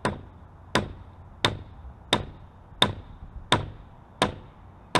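Eight hammer blows at a steady pace, about one every 0.7 seconds, each sharp with a brief ring. They are tapping the new PVC sump pump discharge pipe into place through the cored hole in the curb.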